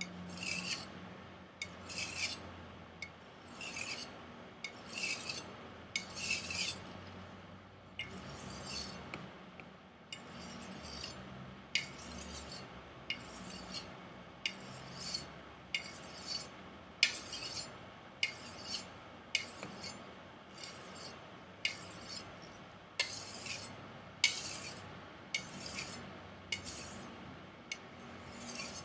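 Steel edge of a Chinese chef knife drawn freehand over a strop loaded with black compound, in short hissing strokes about one a second. The stropping refines and convexes the edge.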